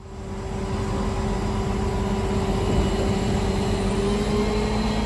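A motor running steadily: a low rumble under a held hum, swelling in over the first second, with the pitch of the hum rising slightly near the end.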